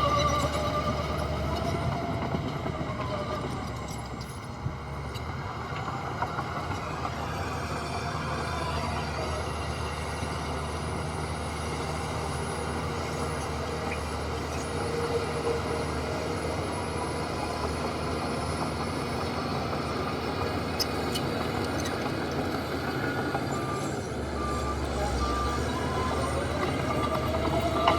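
Heavy diesel earthmoving machinery running steadily, its engine pitch rising and falling at the start and again near the end. A reversing alarm beeps at a regular pace over the last few seconds.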